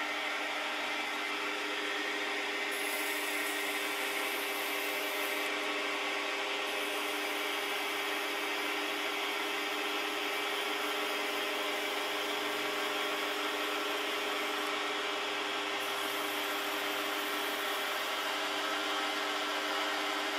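Chinese benchtop lathe running steadily with a constant motor and gear hum, while an abrasive strip held against a small part spinning in the chuck adds a rubbing hiss in stretches.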